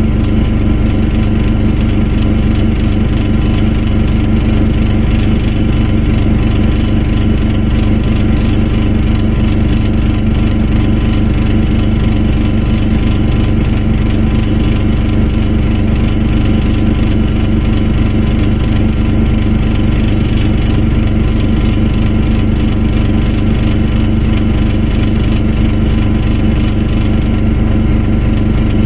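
An engine running steadily at an unchanging speed, with a thin high-pitched whine over it.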